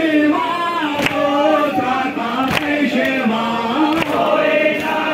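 A crowd of men chanting a mourning lament (noha) in unison. A sharp slap lands about every second and a half as the mourners beat their chests (matam) in time with the chant.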